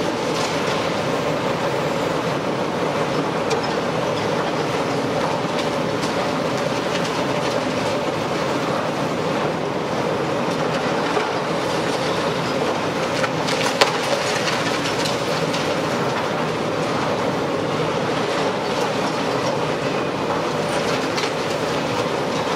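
Demolition excavator running steadily under load as its hydraulic crusher jaws break up concrete, with debris clattering down and one sharp crack a little past halfway.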